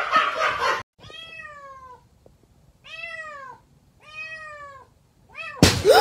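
Domestic cat meowing: three drawn-out meows of about a second each, every one rising then falling in pitch, then a short one. It opens with a brief noisy rustle that cuts off, and a sudden loud noise breaks in near the end.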